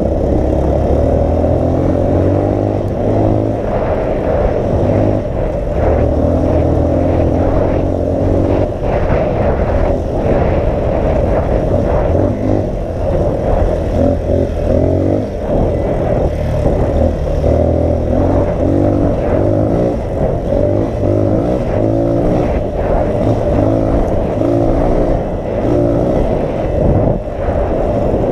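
Dirt bike engine running under way, its pitch rising and falling as the throttle opens and closes, with heavy wind buffeting the microphone.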